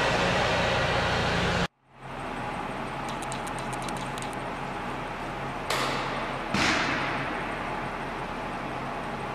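Steady mechanical rumble that cuts off abruptly about two seconds in, giving way to a quieter steady machinery hum. Two sudden bursts of hiss come midway, the second the loudest, fading over a couple of seconds.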